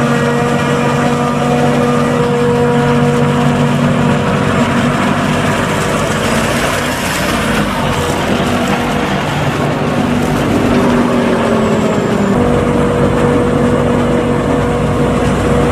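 Farm machinery running: a John Deere tractor with a loaded tipping trailer drives close past, its engine hum growing rougher and noisier as it nears, with the New Holland forage harvester running behind. After a cut about twelve seconds in, the forage harvester and a Case IH tractor with forage wagon give a steadier drone as corn is chopped.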